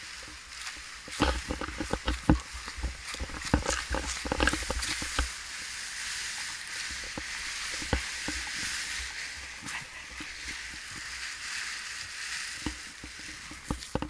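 Rustling and handling noise of a nylon paraglider wing and its lines being moved over grass, with irregular knocks and thumps on the body-worn camera during the first few seconds, then a steadier rustling hiss.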